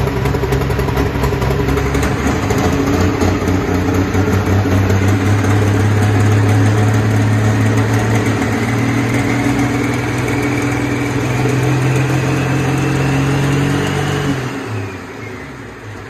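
Red 4.1 Limited Pro pulling tractor's engine running steadily, with a faint whine that climbs slowly in pitch. About fourteen seconds in the engine note drops away and the whine falls.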